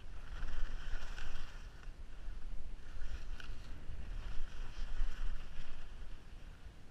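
Skis running down a packed snow piste, the edges hissing and scraping on the snow in swells that rise and fall with the turns, over a low rumble of wind buffeting the camera's microphone.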